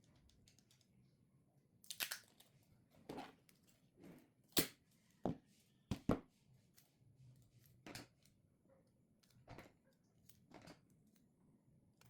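Hands working on a Vivo smartphone during a battery replacement: about a dozen irregular short clicks and scratchy handling noises, the loudest about four and a half seconds in.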